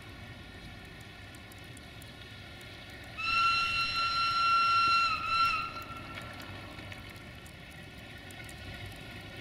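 Horn of Electroputere 060-DA (LDE2100) diesel-electric locomotive 60-0510-2, the 'whistle loco': one high-pitched, whistle-like blast of about two seconds, starting about three seconds in and dipping slightly in pitch as it ends. A low rumble of the approaching train runs underneath.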